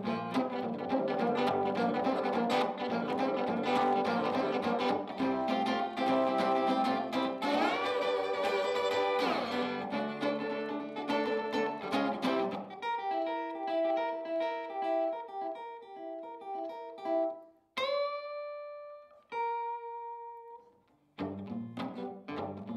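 Steel-string acoustic guitar played with a slide, an instrumental blues break: a busy picked rhythm over a low thumbed bass for about twelve seconds, then sparser high single-note lines with a couple of notes slid up into from below. After a short pause the rhythm picks up again near the end.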